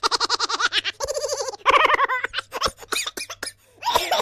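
Silly cartoonish laughing sound effect: rapid strings of laughing pulses in several bursts. In the second half they break up into short choppy pulses, with one more burst near the end.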